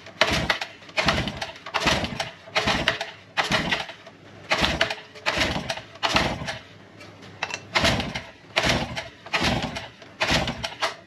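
Yamaha 5 hp single-cylinder two-stroke outboard cranked over by its recoil pull-starter in a quick series of pulls, each a short rattling whir, a little under two a second. The engine does not fire: the spark plug is out and a compression gauge is threaded in for a compression test.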